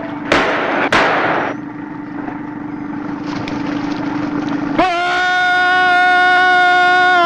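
Two sharp cracks about half a second apart, followed by a brief rushing noise, over a steady low hum. About five seconds in, a man's long scream begins, held at one high pitch.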